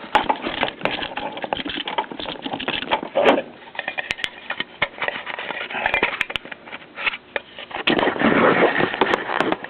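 Metal cans of a homemade alcohol stove being handled, with irregular clicks, taps and scraping as screws are worked into the bottom of the can.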